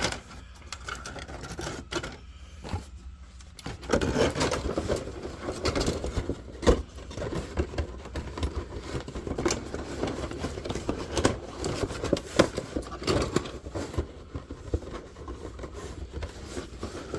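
Plastic model-kit parts and their bags being handled: rustling, scraping and sharp clicks, quieter at first and busier from about four seconds in.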